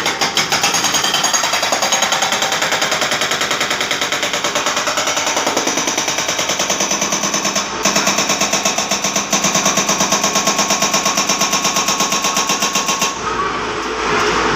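Komatsu hydraulic breaker hammering, a fast, steady run of evenly spaced blows. It breaks off briefly about halfway through and eases off shortly before the end.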